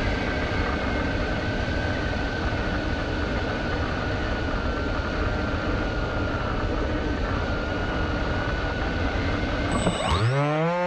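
Electric motors and propellers of a camera drone in flight, recorded from on board: a steady rush of air with a thin whine that drifts slightly in pitch. About ten seconds in, the drone sound cuts out and music comes in with rising notes that settle into a held chord.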